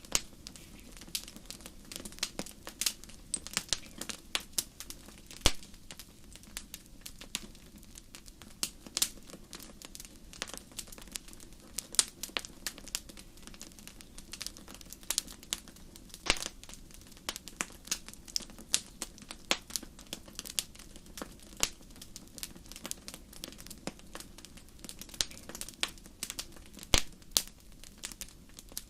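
Wood fire crackling: irregular sharp snaps and pops, several a second, over a faint low steady noise.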